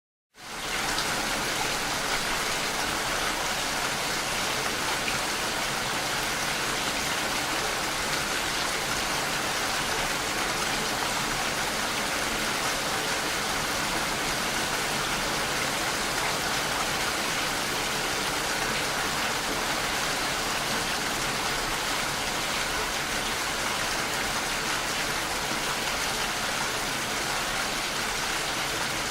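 Steady rainfall: a dense, even hiss of many drops falling, fading in over the first half second.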